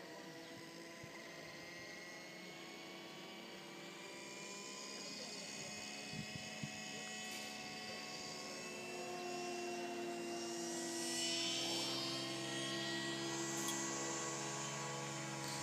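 FMS Cessna 182 radio-control model plane flying past, its electric motor and propeller making a steady whine of several tones that grows louder as the plane comes nearer and is loudest about two-thirds of the way through.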